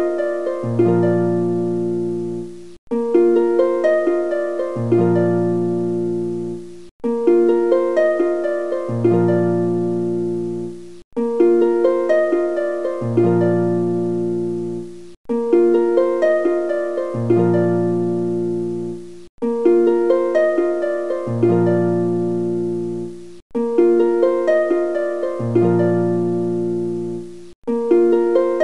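Background music: a gentle plucked-string melody over a low bass note, a short loop of about four seconds that repeats, each time breaking off suddenly and starting over.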